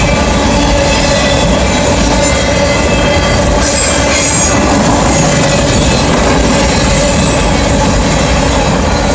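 Freight train of refrigerated boxcars rolling past at close range: a steady, loud rumble of steel wheels on rail, with a short high squeal from the wheels about four seconds in.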